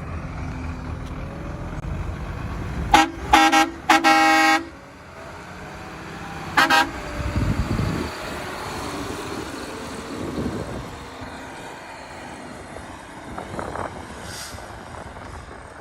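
Road traffic passing, with a truck's air horn giving three short blasts about three seconds in, the last held longest, then one short toot a couple of seconds later.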